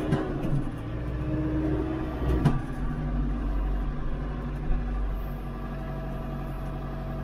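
Branson 5220 tractor's diesel engine running steadily while its front loader grapple pushes through brush. A sharp crack comes about two and a half seconds in, and a smaller knock near the five-second mark.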